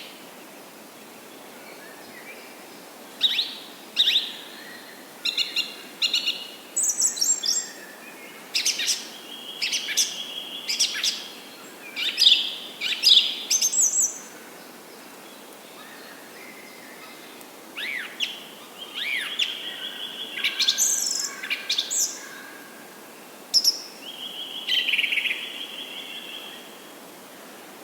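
Wild birds chirping and calling in quick, short phrases over a steady background hiss. The calls come in two busy stretches with a quieter pause about halfway through.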